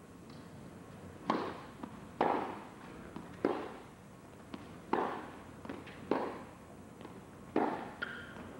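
Tennis rally: six racquet strikes on the ball, one every second or so, each echoing briefly in an indoor arena.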